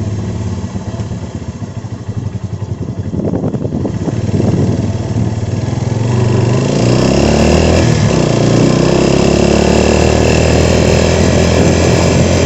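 Honda CBF 125's single-cylinder four-stroke engine running. It picks up revs about three seconds in as the motorcycle gets under way, then runs louder and steady from about seven seconds on.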